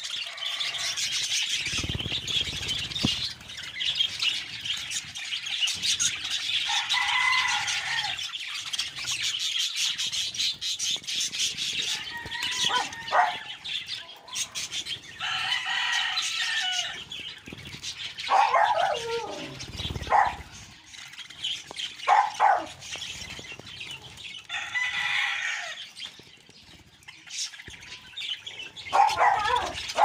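A flock of budgerigars chattering and chirping, with wings flapping and splashing as birds bathe in a shallow tray of water. Louder chirps stand out several times over the steady chatter.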